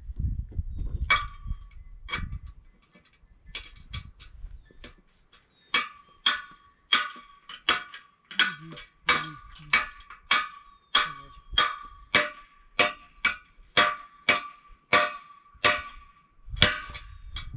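Hammer striking metal at the base of a metal flagpole, each blow ringing: a few scattered taps at first, then steady blows about two a second from around six seconds in.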